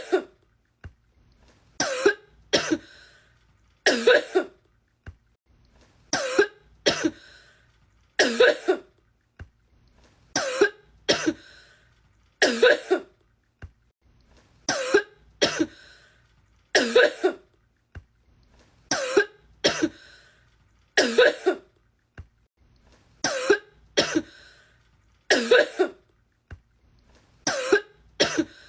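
A woman coughing in a prolonged fit: short, harsh coughs singly or in quick pairs, about one burst every two seconds, repeating over and over in a loop.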